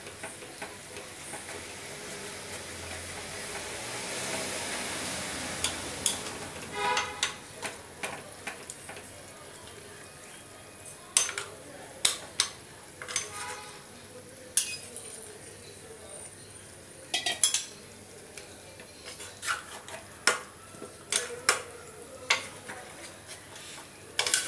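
Metal spatula stirring chicken curry in a pressure cooker: a sizzle that swells over the first few seconds and then eases, then scattered sharp clinks of the spatula against the pot.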